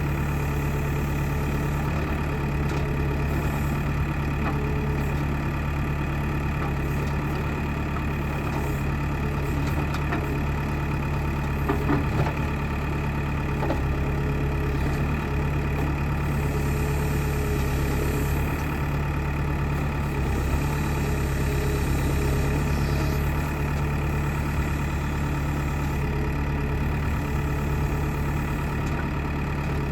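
Backhoe loader's diesel engine running steadily at a constant speed, with a few brief clicks about twelve seconds in.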